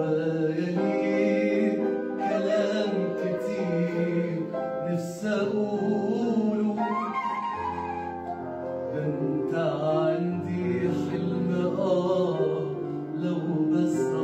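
A man singing a melodic Arabic song into a microphone, with pitch glides and held notes, over a musical accompaniment.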